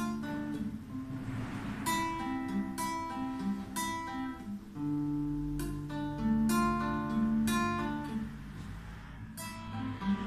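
Acoustic guitar playing without singing: chords struck about once a second and left to ring.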